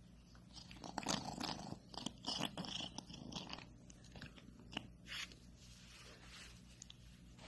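A cat biting and chewing on something: a run of irregular crunchy clicks and scrapes lasting about five seconds, densest in the first half.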